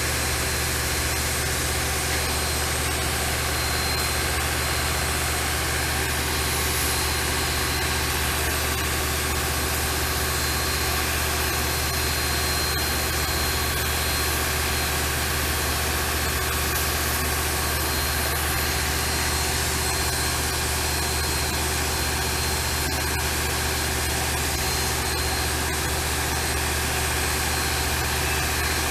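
A heavy engine idling steadily at an even pitch.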